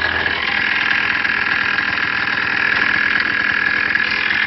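ATV (four-wheeler) engine running steadily.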